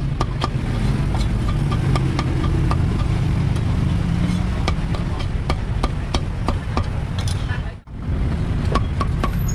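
Cleaver chopping through roast pork and pig intestines on a thick wooden chopping block: a quick run of sharp knocks, several a second, over a steady low background rumble.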